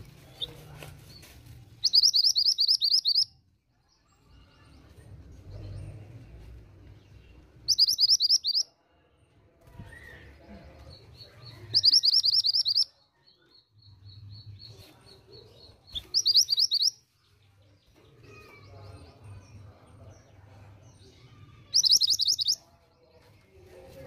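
A female minivet (mantenan gunung) calling in five bursts, one about every four seconds. Each burst is a rapid, high trill of short notes lasting about a second.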